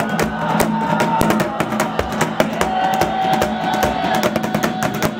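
Background music with drums: busy, rapid percussion hits over a few held notes.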